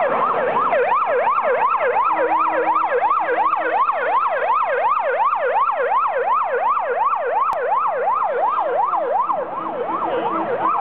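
Emergency vehicle siren in a fast yelp, its pitch sweeping up and down about three times a second without a break.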